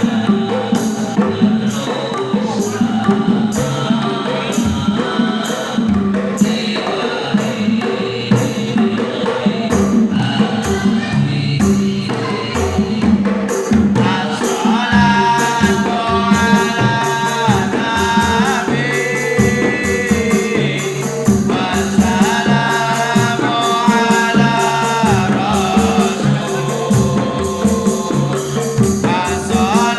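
Music: Islamic sholawat singing over a steady hand-percussion rhythm of frame drums and tambourine. About halfway through, a voice comes in holding long, drawn-out notes that slide between pitches.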